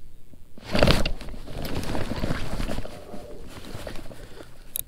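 Rustling and handling noise of a jacket sleeve and a fishing rod moving right against a chest-mounted microphone. It starts suddenly about half a second in, is loudest around one second, and fades out unevenly, with a sharp click near the end.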